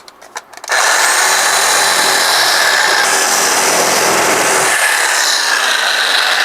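A handheld power tool runs steadily against a scooter's front tire in a failed attempt to cut the tire off the wheel. It starts under a second in, after a few small clicks.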